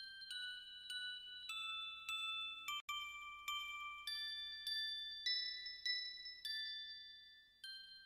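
Background music: a gentle bell-like melody of struck notes, a new note about every half second, each ringing and fading. The sound cuts out for an instant about three seconds in.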